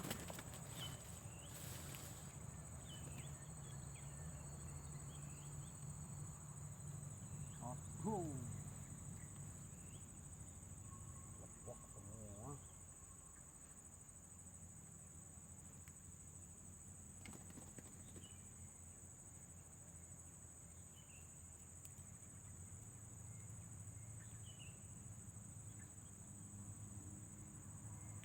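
Faint, steady, high-pitched drone of insects, with a few short faint chirps scattered through it. A brief falling call about eight seconds in is the loudest moment.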